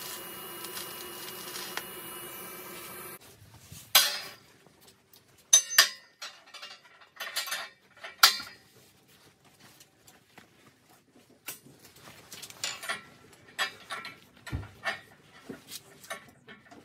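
TIG welding arc on a steel chain link, a steady sound that cuts off abruptly about three seconds in. Then a run of sharp, irregular metallic clinks and clanks as the steel chain is handled on a perforated steel welding table.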